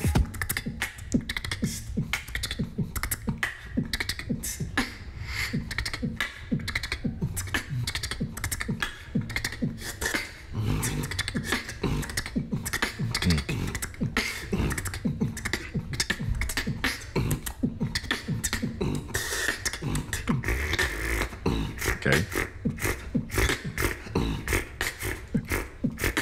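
Beatboxing with the lips held back by a cheek retractor, so no lip sounds can be used: a fast rhythm of sharp mouth and throat clicks over a steady low bass.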